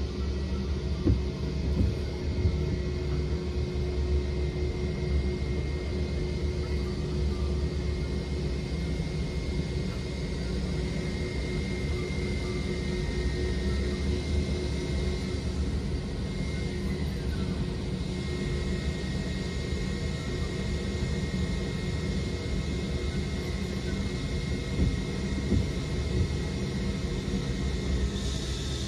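Airbus A321 jet engines idling as the airliner taxis in to the gate: a steady low rumble with a thin high whine, heard from inside a vehicle cab. A few short knocks in the first few seconds.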